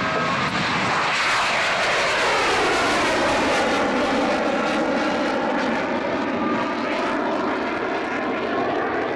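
CF-18 Hornet's twin General Electric F404 jet engines at takeoff power as the fighter lifts off and climbs away. The jet noise is loud and steady, with a tone that sweeps downward over the first few seconds and then levels off.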